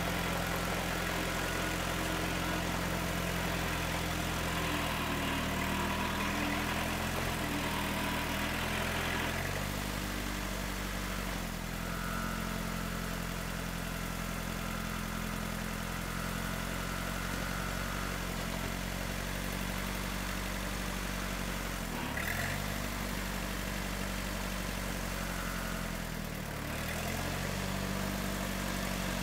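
Tractor engine running steadily while a front-end loader tractor works. Its pitch drops about a third of the way in and dips briefly twice later. A thin higher whine joins for several seconds in the middle.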